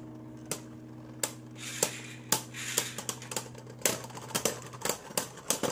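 Two Beyblade Burst tops spinning in a plastic stadium, clashing against each other and the stadium wall in sharp clicks that come faster in the second half, with a light whirring hiss from their spinning.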